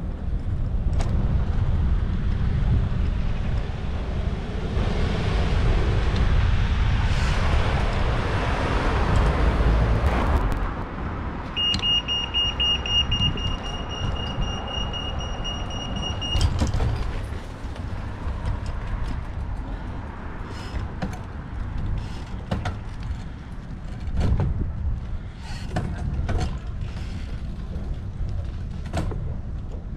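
Wind rumbling on the microphone and road traffic passing at a bicycle road crossing. About twelve seconds in, a steady high electronic beep from a pedestrian crossing signal sounds for about five seconds, then cuts off.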